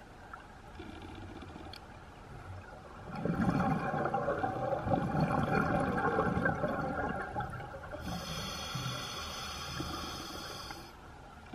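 Scuba breathing underwater through a regulator: a few seconds in comes a long rush of exhaled bubbles, then a hissing inhale through the regulator near the end.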